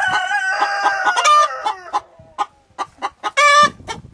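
Chickens clucking, with a rooster's crow trailing down in pitch over the first second or two and a loud squawk about three and a half seconds in.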